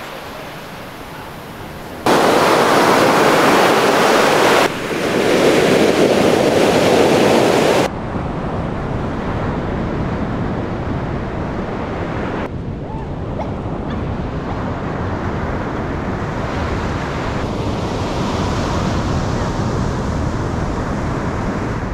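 Ocean surf breaking on a sandy beach, a continuous rush of waves. It is loudest from about two to eight seconds in and changes abruptly in level several times as the shots cut.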